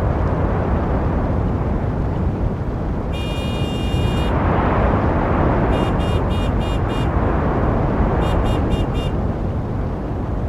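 Busy street traffic, a steady rumble of vehicles. A horn gives one long honk about three seconds in, then a run of five quick toots, then four more near the end.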